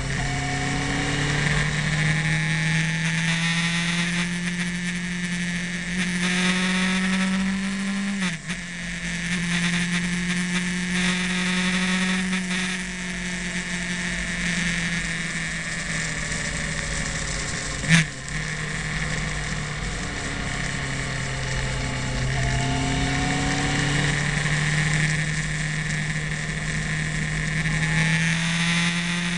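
Motorcycle engine heard from the bike itself, its note climbing and dropping back several times as the rider works the throttle and gears through the bends, with wind rushing over the microphone. A single sharp click comes a little past halfway.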